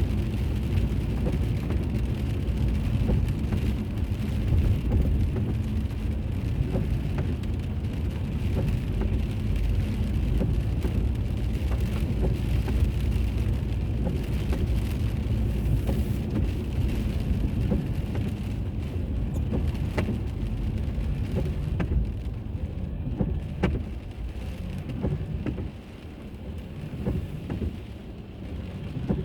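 Car being driven, heard from inside: steady low road and tyre rumble with scattered small knocks, getting quieter near the end.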